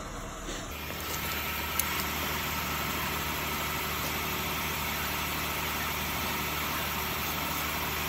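A motor starts running about a second in and carries on steadily, a low hum with a hiss over it.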